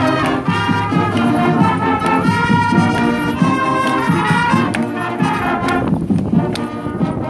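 Marching band playing on the march, brass leading over woodwinds, with regular percussive strikes keeping the beat.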